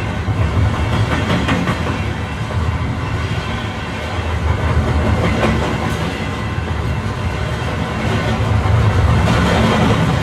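Passenger train running on the track, heard from inside the carriage: a steady rumble with a few clacks of the wheels over rail joints.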